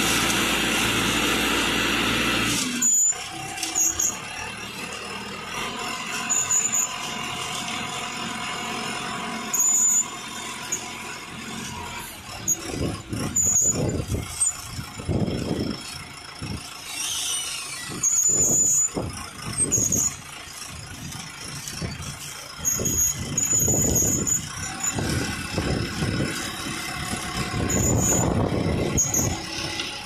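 Self-loading concrete mixer truck's diesel engine running while its loader arm lifts and lowers the bucket. The engine is loud at first and drops sharply about three seconds in. Short, high squeals come every few seconds, along with louder surges of noise.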